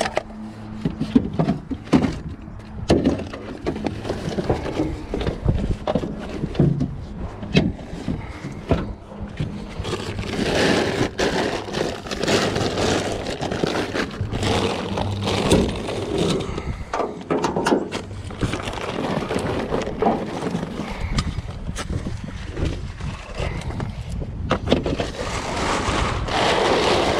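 Objects being shifted and packed into a loaded pickup truck bed: irregular knocks, bumps and scrapes of handled items.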